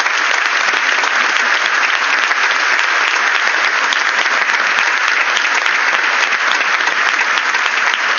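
Audience applauding, many hands clapping in a loud, dense, steady patter after the end of a spoken reading.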